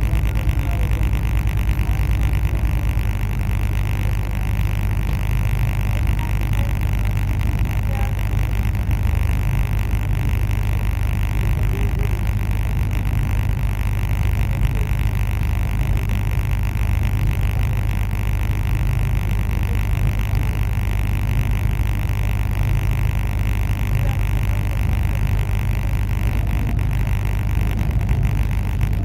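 Steady low rumble and hiss of a TCDD regional passenger train running, heard from aboard, with no clear changes or knocks.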